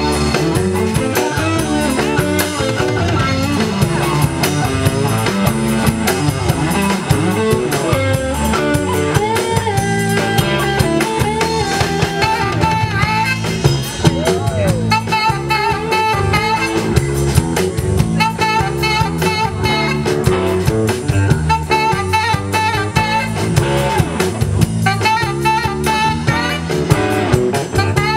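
Live blues band playing an instrumental break: a saxophone solo over electric bass, drum kit and electric guitar, with a steady shuffling beat.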